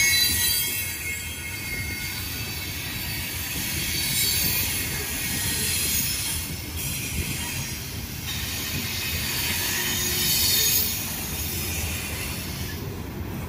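Loaded coal hopper cars rolling past, their steel wheels rumbling over the rails with a high-pitched wheel squeal that swells twice, about four seconds in and again near the end.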